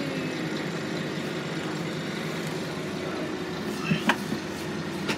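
A bus engine idles steadily while the bus stands still, heard as a low, even drone from inside the passenger cabin. A couple of brief, sharp clicks come about four seconds in.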